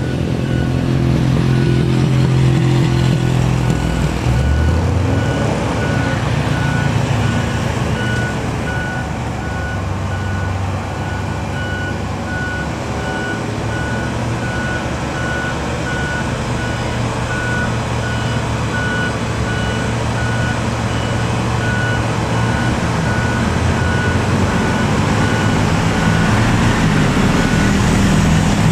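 Isuzu Giga FVM truck's diesel engine running at low revs as the truck approaches. Its pitch shifts about four seconds in, and it grows louder toward the end. A steady electronic beep repeats about once a second through most of it.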